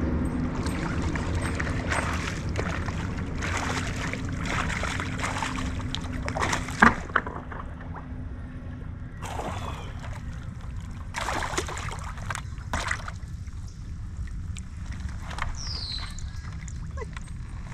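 Water splashing and sloshing around a fishing kayak in irregular bursts over a low steady rumble, with two sharp knocks about seven seconds in.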